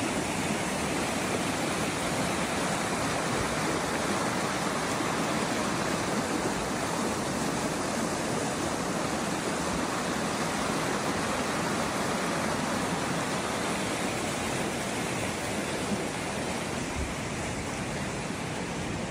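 A swollen forest stream rushing in whitewater over rocks, a steady, even rush of water.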